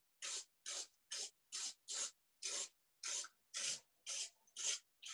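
Hand spray bottle misting water in quick, evenly repeated puffs of hiss, about two a second, wetting the bottom edge of a wet watercolour wash so the colours soften.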